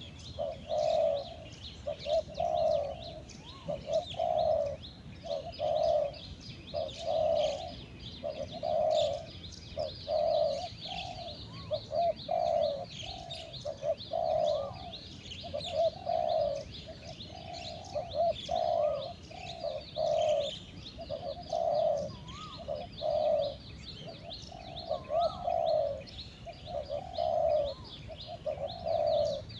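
Spotted doves cooing over and over, a low coo about once a second, with small birds chirping busily behind.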